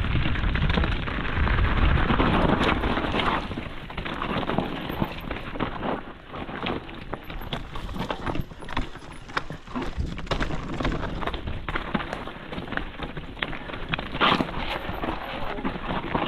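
Mountain bike riding a rough trail: wind rushing over the microphone for the first few seconds, then tyres on dirt and rock with the bike rattling and knocking through many quick, irregular impacts.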